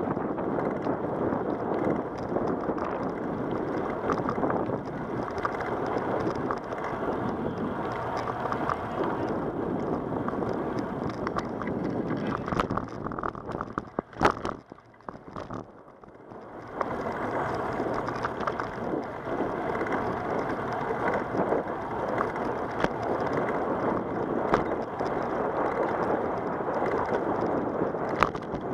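Wind buffeting the microphone of a camera mounted on a moving bicycle, mixed with tyre noise on rough asphalt: a steady rushing. About halfway through it drops away for roughly two seconds, beginning with a sharp click, and then comes back.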